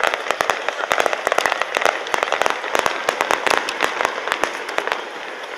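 Aerial fireworks bursting into glittering stars, a dense run of sharp crackles and pops that thins out and stops about five seconds in.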